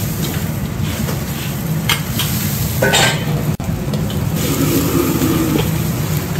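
Wok cooking on a restaurant jet burner: the gas burner running steadily under a carbon-steel wok while the food in it sizzles and steams, with a metal ladle stirring and clanking sharply against the wok a couple of times. The sound cuts out for an instant about halfway through.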